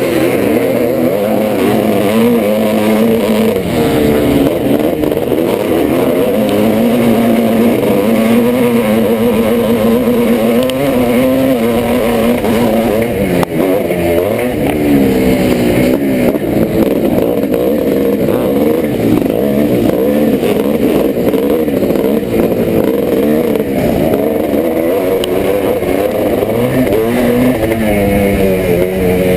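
1986 Yamaha YZ490's single-cylinder two-stroke engine being ridden hard, revving up and easing off over and over as the throttle is worked.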